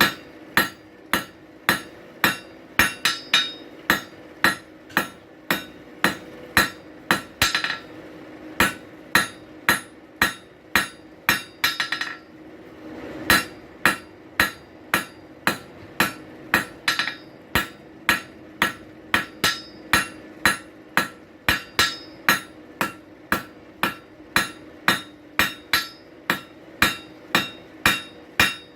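Blacksmith's hammer striking hot steel on an anvil at about two blows a second, each blow with a short metallic ring, as the bar is forged into a drive hook. The hammering stops briefly near the middle, then resumes at the same pace.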